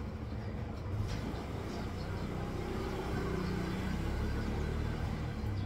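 Low, steady motor-vehicle engine rumble with a pitched hum that swells through the middle and eases off near the end.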